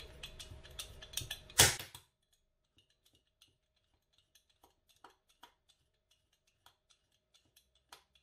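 Vegetable peeler scraping the skin off a cooked carrot in quick repeated strokes, each a short scratchy click. The strokes are loud for about the first two seconds, then carry on only faintly.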